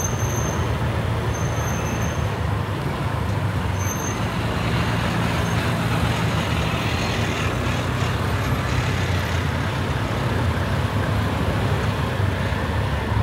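Motorbike, tuk-tuk and car traffic on a city street, heard from within the moving traffic: a steady engine hum with road noise. A few short high-pitched peeps sound near the start and again about four seconds in.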